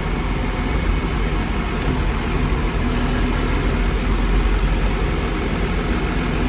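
Caterpillar D6N bulldozer's six-cylinder diesel engine idling steadily, a constant low hum.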